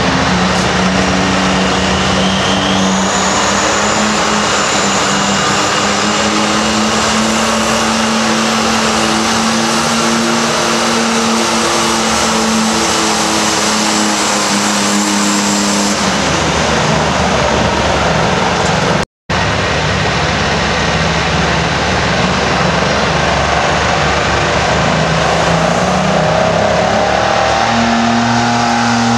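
Turbocharged diesel garden pulling tractor's engine running hard at steady high revs under load. A faint high whistle rides over it for much of the first half. After a brief dropout about two-thirds of the way through, another diesel tractor engine runs, its pitch stepping up near the end.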